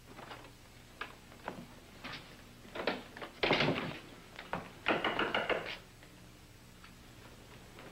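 Footsteps and a door being opened and shut: a few light knocks in the first seconds, then two louder clattering door sounds about three and a half and five seconds in.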